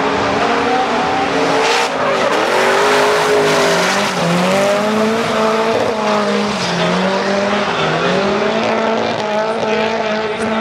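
Drift cars sliding in tandem, engines revving up and down at high rpm over continuous tyre squeal from spinning rear wheels.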